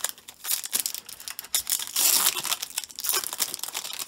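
A foil baseball card pack wrapper crinkling and being torn open by hand: dense, irregular crackling and tearing, loudest about two seconds in.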